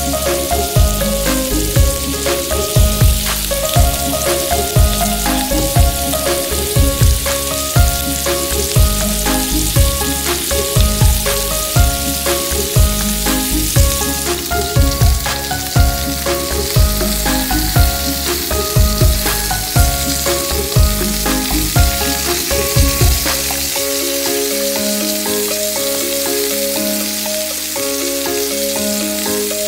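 Meat and green-onion skewers sizzling and frying in a frying pan, a steady hiss, under background music with a regular beat. About three-quarters of the way through, the beat drops out and the music goes on with held notes.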